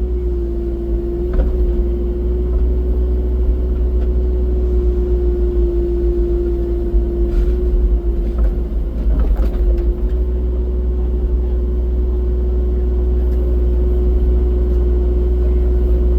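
Rubber-tracked excavator's diesel engine running steadily, a loud low rumble with a constant tone, with a few knocks and some clatter in the middle as the machine works.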